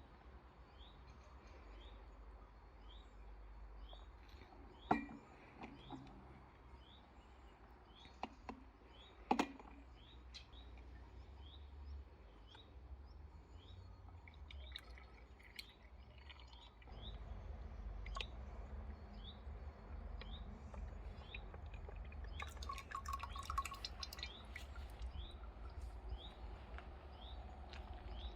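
A bird repeating a short, high, upward-sliding chirp about once a second over a low steady hum. A few sharp knocks cut in, the loudest two about a third of the way through, and a brief rattle of clicks comes later.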